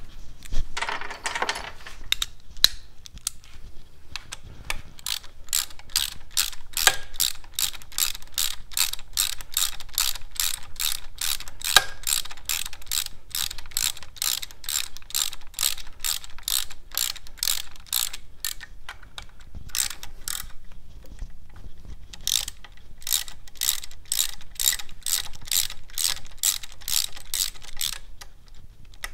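Hand ratchet clicking in an even rhythm of about two to three clicks a second as it runs in Allen-head bolts. The clicking pauses for a few seconds about two-thirds of the way through, then resumes.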